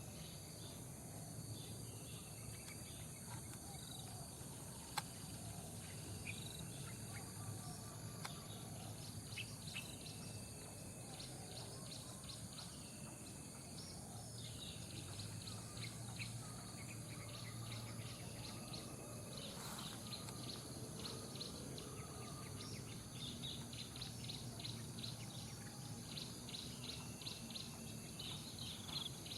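Small songbirds chirping in short, repeated notes and quick trills, which come thicker near the end, over a steady high insect drone.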